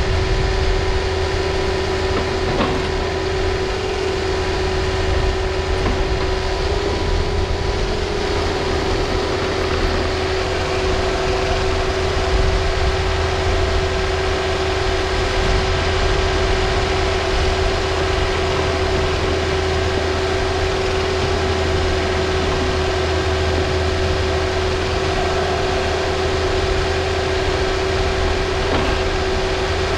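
Takeuchi TB260 mini excavator's diesel engine running steadily up close while the machine digs, a constant low drone with a steady humming tone over it.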